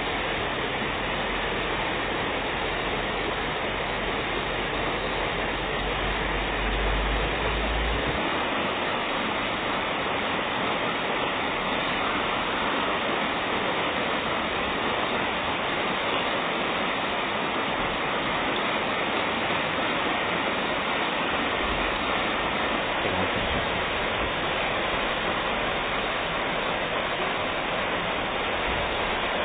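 Steady rush of flowing river water, an even hiss with no breaks, with a low rumble underneath for the first eight seconds or so.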